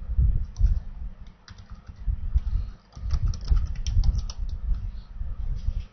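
Typing on a computer keyboard: an irregular run of key clicks, each with a dull low thud, as a short command is entered at a Linux prompt.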